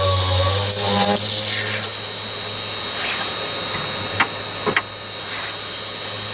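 Machifit 500W spindle motor with an ER11 collet running a small drill bit into a metal bar. The cutting noise stops about two seconds in as the drill is backed out, and the motor runs on freely with a steady high whine. Two sharp clicks come a little later.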